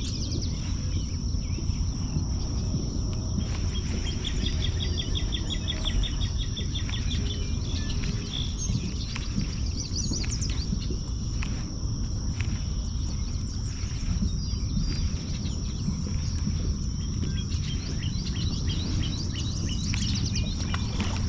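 Outdoor lakeside ambience: a steady high insect buzz, scattered bird chirps with a rapid run of repeated chirps about four seconds in, over a constant low rumbling noise.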